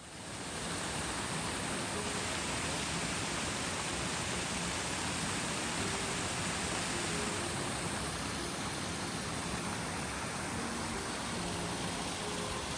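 Steady rushing roar of a waterfall's falling water, fading in over the first second.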